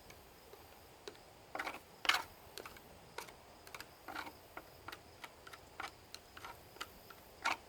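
Scattered light clicks and taps of a screwdriver and small metal screws as screws are worked out of an electric lawn mower's housing, irregular and a few at a time, the loudest about two seconds in.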